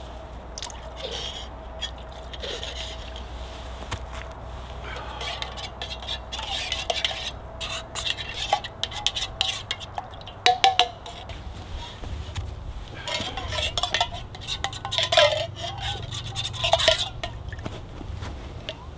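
Small metal camp cook pot and lid being handled and stirred: scraping and light clinks, with a few sharp clinks about ten seconds in and a busier run of metal knocks and clatter near the end.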